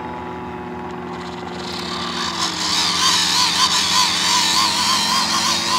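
A Du-Bro hand-crank fuel pump being cranked to pump fuel into an RC airplane's tank. It gives a wavering squeak that rises and falls about three times a second and grows louder about two seconds in.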